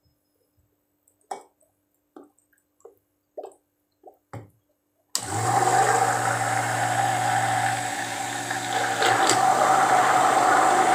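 A few light taps and clicks, then about five seconds in a handheld stick blender switches on and runs steadily, blending rosemary powder into soap-making oils in a glass bowl.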